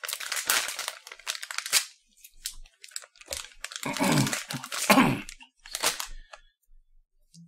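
Snack wrapper crinkling and tearing as a bonus pack of small chocolates is opened by hand, in several bursts with short pauses between them.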